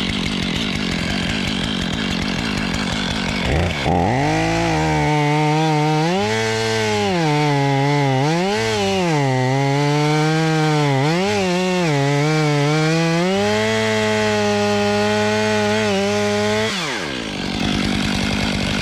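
Stihl chainsaw cutting through the trunk of a western red cedar, making the crane-side cut. The engine pitch repeatedly sags and recovers as the chain bogs in the wood, then drops sharply near the end as the throttle comes off.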